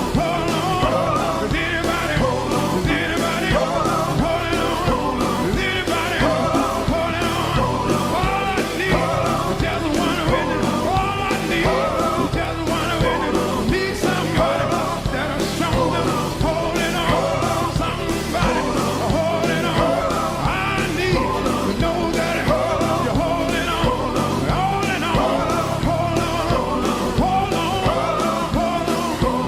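Rock music with loud, shouted vocals and a steady beat.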